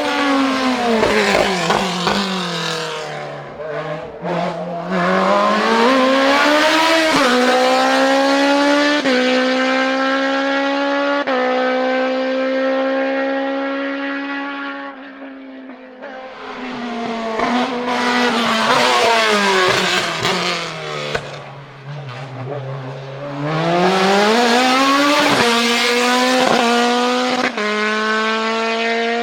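Hillclimb racing car engines at high revs. A car slows with the engine pitch falling, then accelerates away through several gear changes and fades. A second pass follows the same way, slowing with the revs dropping and then pulling hard through gear changes near the end.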